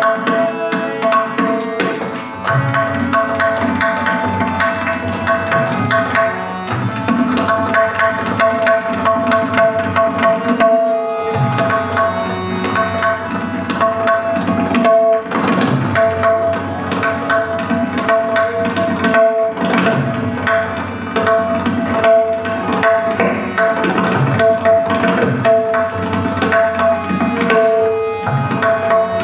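Tabla solo: dense, fast strokes on the tabla pair, with low bass-drum strokes under the ringing right-hand drum. Under it a harmonium repeats a steady melodic cycle (the lehra) that keeps the rhythmic cycle.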